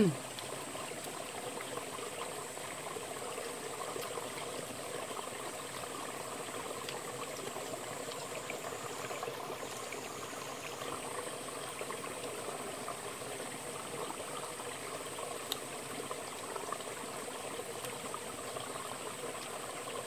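Mountain stream flowing over rocks: a steady rushing, trickling water sound, with a thin steady high-pitched hiss above it.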